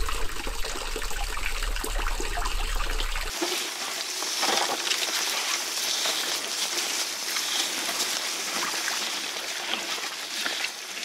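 Stream water trickling through a wooden sluice gate into a pond, with a low rumble underneath. About three seconds in it gives way to a bicycle's tyres rolling over a muddy track of wet fallen leaves, a steady hiss.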